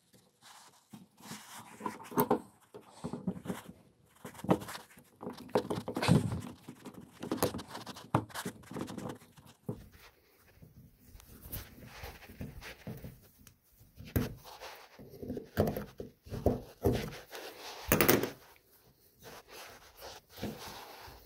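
Pliers clicking, scraping and knocking against the metal body of an air-brake tractor protection valve as a part is worked into its bore, with nitrile gloves rubbing. The handling noises are irregular, with a few louder knocks.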